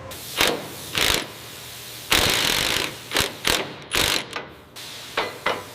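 Irregular series of short mechanical clicks and clanks from hand tools at work on a machine assembly, about ten in all, with one longer rasping stroke about two seconds in.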